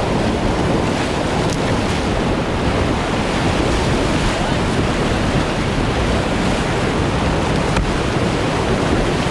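Whitewater rapids rushing steadily and loudly, heard close up from a kayak running the river.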